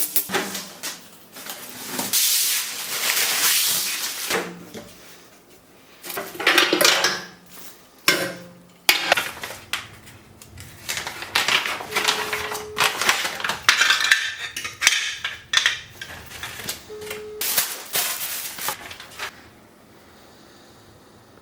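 Hard metal and plastic parts being handled, clattering and scraping in irregular bursts, with two brief steady hums in the second half.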